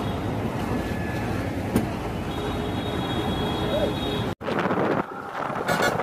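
Bus travelling along a highway, its engine and road noise heard steadily through an open window. About four seconds in the sound cuts off abruptly and is replaced by another moving-vehicle recording with wind on the microphone.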